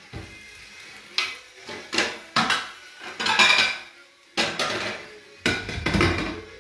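Kitchenware clattering: a fork and the metal lid and plates of an electric contact grill knocking and scraping, in a string of sharp knocks with a longer scrape about three and a half seconds in.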